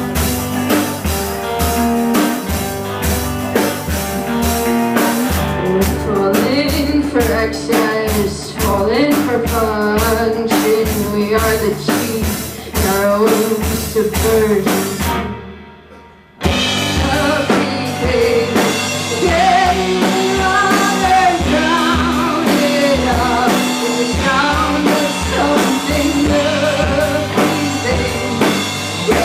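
Live rock band playing: drum kit and bass under a wavering lead melody. About halfway through the music fades down to a brief near-silent break, then the full band comes back in at once.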